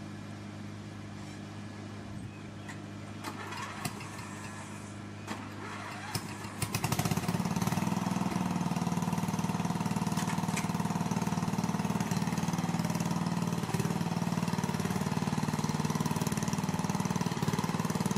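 Riding lawn mower's engine idling steadily, with a few light clicks, then speeding up about seven seconds in and running louder and steady as the mower drives off.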